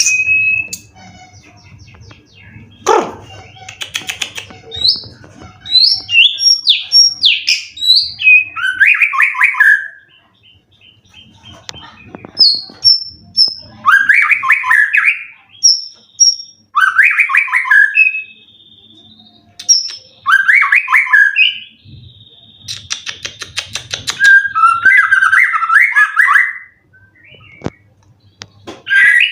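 White-rumped shama (murai batu) singing a varied song: clear high whistled notes alternating with loud, rapid chattering phrases, with short pauses between phrases.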